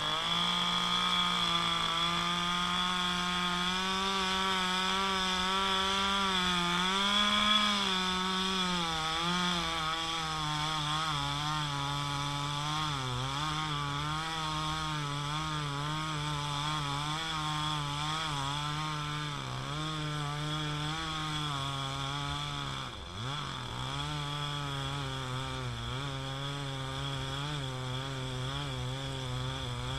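Chainsaw revving up and running at high speed while cutting a felled tree trunk into logs. Its pitch wavers as the chain bites into the wood, dips sharply once about two-thirds of the way through, and recovers.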